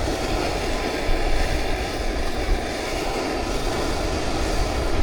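Wind buffeting the microphone: a steady rushing roar with uneven low rumbles.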